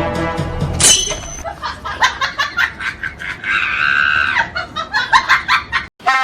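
People screaming and laughing: a shrill cry about a second in, then laughter in quick bursts with a held high-pitched shriek in the middle.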